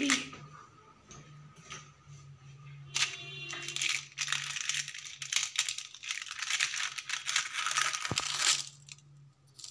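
Rustling and crinkling noise, like paper or foil being handled or something rubbing near the microphone, from about three seconds in until near the end, over a steady low hum.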